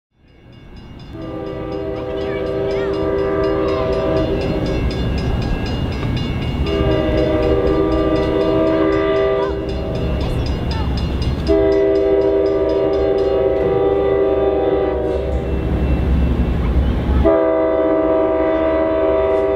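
Amtrak Silver Star's approaching diesel locomotive sounding its multi-tone air horn in four long blasts, the last starting near the end, as a warning for the road crossing ahead. A steady low engine and rail rumble runs underneath.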